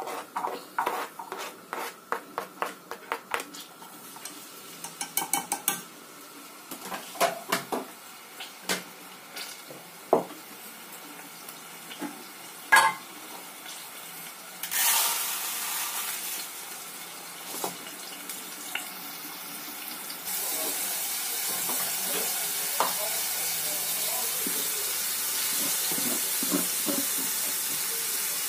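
A knife taps and scrapes against a cutting board and the rim of a pan as chopped onion is pushed into it: many sharp clicks over the first several seconds, then a few scattered knocks. From about twenty seconds in, the onion sizzles steadily in hot oil in the pan.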